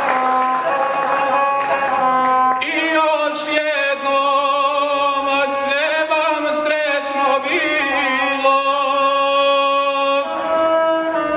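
Gusle, the single-string bowed folk fiddle, playing a short phrase alone; about two and a half seconds in a man's voice comes in, singing in long, wavering, ornamented lines over the gusle's accompaniment.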